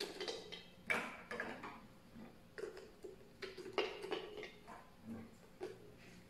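Small pieces of ice clinking and knocking, irregular short clicks, as they are put into a rubber ice bag from a metal kidney dish.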